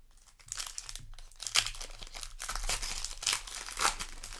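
Foil booster pack wrapper crinkling and crackling as it is handled, in irregular bursts, with sharp crackles about a second and a half in and near the end.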